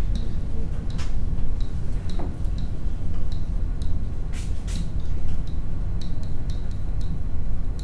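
A stylus tapping and scratching on a tablet or touchscreen during handwriting, heard as short light ticks about twice a second, irregularly spaced. Underneath runs a steady low rumble.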